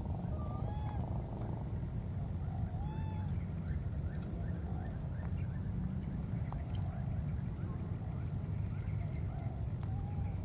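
Baby macaques giving short, arched coo calls, one every second or two, over a steady low rumble.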